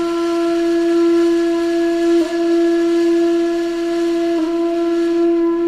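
The cat-trend sound: one long held note on a breathy, flute-like wind instrument, with airy hiss over a steady pitch that dips briefly twice.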